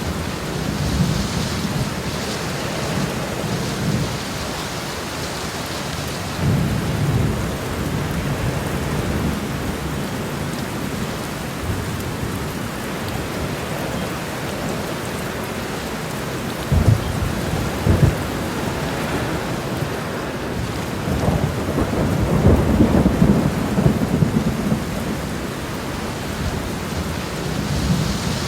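Very heavy rain falling on a road: a dense, steady wash of rain noise that swells deeper and louder several times.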